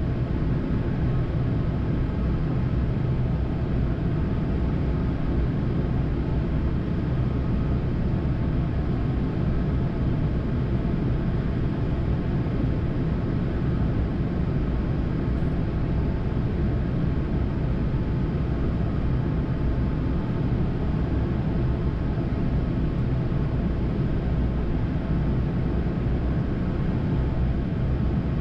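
Steady flight-deck noise of a Boeing 787-9 in descent: a constant rush of air with a low hum underneath, even in level throughout.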